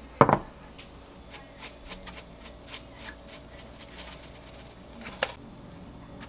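A white ceramic baking dish set down on a counter with a loud knock, then a run of light ticks as dried parsley is shaken over the food, and another sharp knock with a brief ring about five seconds in.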